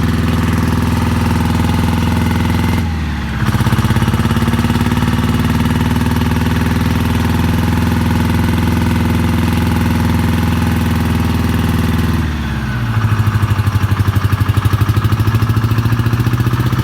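A diesel engine running steadily, its speed changing twice: once about three seconds in and again past the middle, after which it runs louder with a fast even beat.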